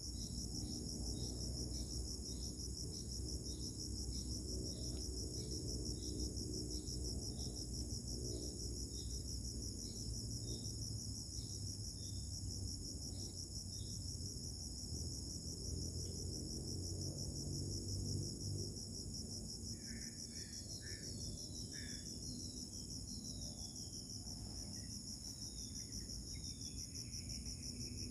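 Insects trilling steadily at a high pitch, with a short chirp repeating about twice a second through the first half and a few short falling chirps near the end, over a low rumble.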